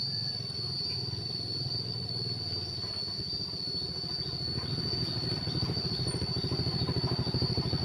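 Two small motorbikes, one a Yamaha scooter, approaching and growing steadily louder as they draw near, over a steady high-pitched whine.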